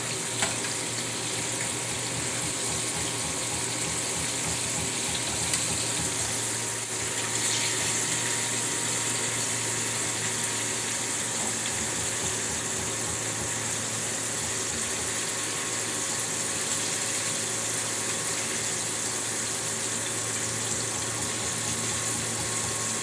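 Fish deep-frying in hot oil, a steady sizzle throughout, with a brief clack about half a second in.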